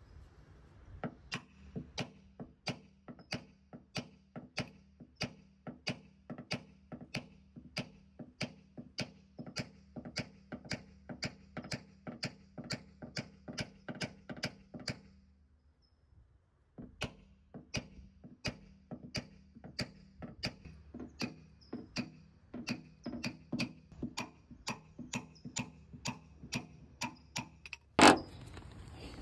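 Light, even hammer taps on a paintless dent repair knockdown tool, about two to three a second with a slight metallic ring, knocking down high spots on a car's rear quarter panel. The tapping stops for about two seconds midway, then resumes. Near the end comes a single louder knock.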